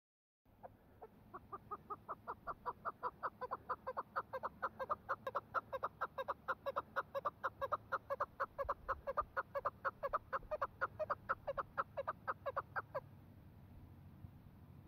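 Chukar partridge calling: a long run of rapid repeated notes, about five a second, that grows louder over the first few seconds and stops abruptly near the end.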